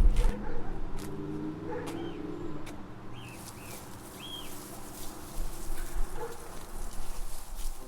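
A passing motor vehicle's engine rumble fading away, then a few short bird chirps.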